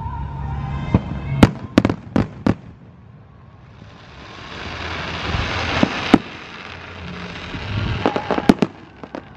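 Fireworks going off: a quick string of sharp cracks, then a hiss that grows louder as a shell climbs, ending in a loud bang about six seconds in, and a few more cracks near the end.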